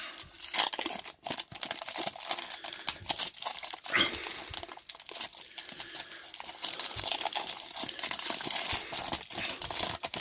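A trading card pack wrapper being crinkled and torn open, with continuous crackling throughout and a louder tear about four seconds in.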